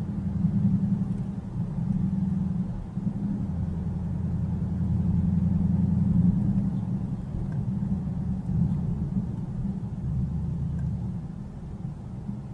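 Low, steady road and engine rumble of a car driving at highway speed, heard from inside the cabin through a dashcam.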